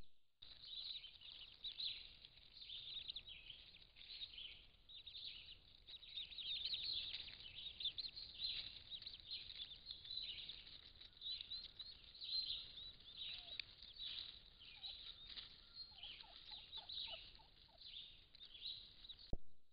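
Wild turkey poults peeping continuously in dense, high-pitched chirps. Near the end there is a quick run of about six lower notes, then a sharp click.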